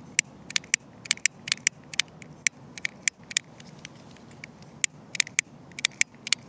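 A cigar lighter's ignition clicking again and again, several sharp clicks a second, with a pause a little past halfway, as it fails to stay lit; the smoker suspects something is wrong with it.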